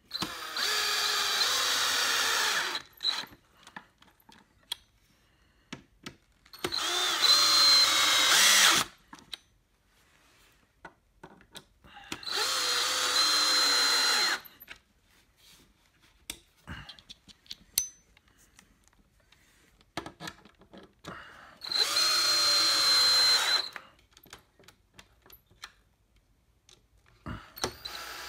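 Power drill driving long screws into a wooden chair frame: four runs of about two seconds each, the motor's pitch dropping at the end of each run, and a fifth run starting right at the end. Light clicks and knocks of handling the parts between runs.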